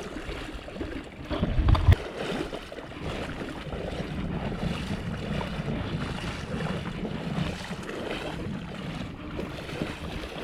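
Water sloshing and wind buffeting the microphone, with a heavy low bump about two seconds in.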